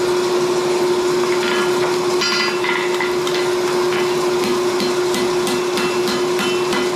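Hand hammer striking hot steel on an anvil in irregular blows with a metallic ring, starting about a second and a half in, setting a forge weld. Under it runs the steady hum of a forge blower.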